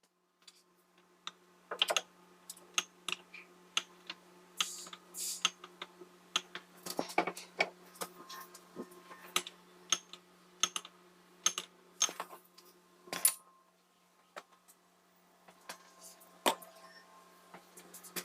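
Irregular light clicks and knocks, about twenty of them scattered unevenly, over a faint steady low hum.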